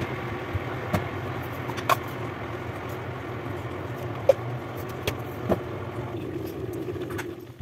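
Steady low mechanical hum, with a few light clicks and knocks from a plastic bowl and a jar of corn flour being handled on a kitchen counter.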